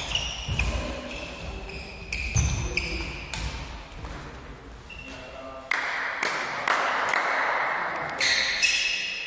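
Badminton singles rally: repeated sharp racket strikes on the shuttlecock, with sports shoes squeaking on the court floor between the shots.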